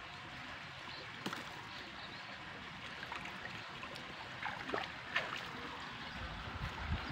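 Shallow water trickling along an irrigation ditch beside a rice paddy, a steady hiss, with a few short high chirps in the middle and low thumps near the end.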